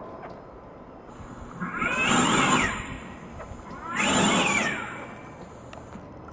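Recorded animal call played from an animatronic animal's loudspeaker, twice, each call about a second long, rising and then falling in pitch.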